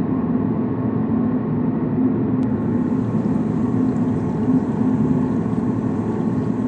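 Steady low drone of machinery aboard a container ship. A faint hiss joins about two and a half seconds in.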